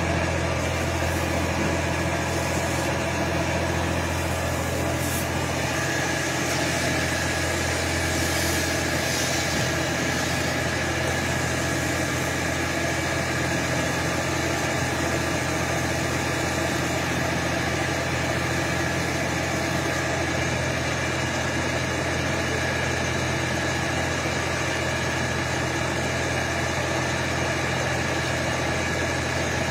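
Fire engine's motor idling steadily while it feeds the hose lines. A thin steady whine joins about six seconds in.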